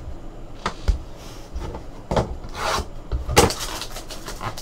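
Trading cards and their cardboard and foil packaging being handled: irregular rubbing and scraping with a few sharp clicks, the loudest about three and a half seconds in.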